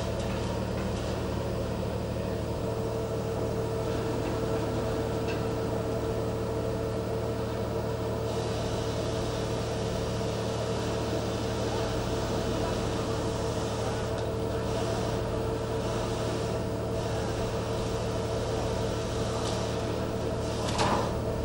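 Steady machinery drone of a ship under way: a constant mid-pitched tone held over a low engine hum.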